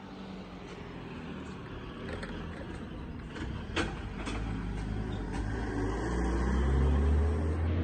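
A motor vehicle passing on the street, its low engine hum growing louder and peaking near the end, with a few light clicks along the way.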